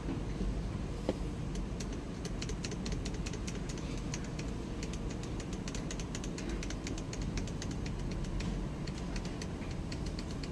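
Hyundai Grand Starex's turbodiesel engine idling: a steady low hum with a fast, irregular ticking over it.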